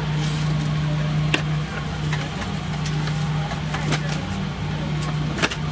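Steady low hum of a Boeing 777's passenger cabin, with a few sharp clicks, the loudest about a second and a half in and near the end.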